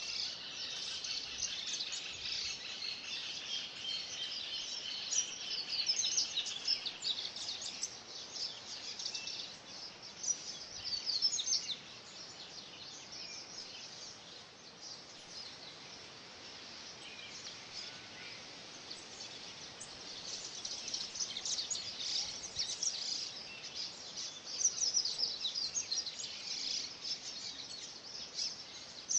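A mixed chorus of wild cerrado birds singing and chirping together: many short high calls and trills overlapping. Busy at first, thinning out for a while past the middle, then busy again.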